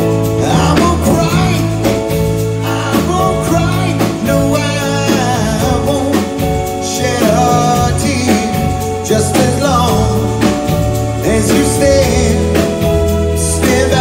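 Male vocal group singing live into microphones over instrumental backing with a steady bass line and beat, heard from the audience in a theatre.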